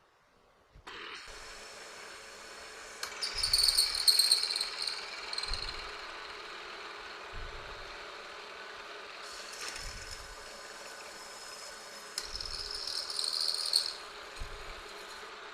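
Milling machine starting up and running steadily, with a high-pitched whine from about 3 to 5 seconds in and again near the end as the 1/2 inch end mill plunges and cuts a hole, and low knocks every couple of seconds.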